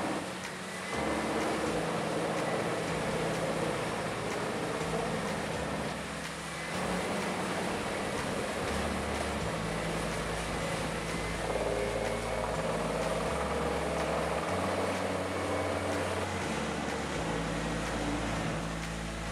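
Heavy wood-processing machinery running with a dense, steady noise, under background music of held low notes that change pitch every second or two. The sound dips briefly about half a second in and again around six seconds.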